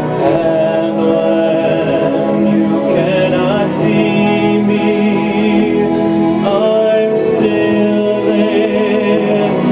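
Male tenor singing a slow ballad live over instrumental accompaniment, with long held notes.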